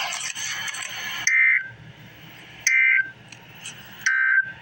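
Emergency Alert System end-of-message data tones: three short, shrill two-tone warbling bursts about a second and a half apart, marking the end of the alert. They come after about a second of rushing noise.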